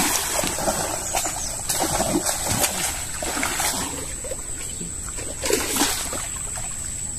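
Water splashing and churning as a hooked rohu thrashes at the surface on the line, with several sharper splashes, the loudest about five and a half seconds in.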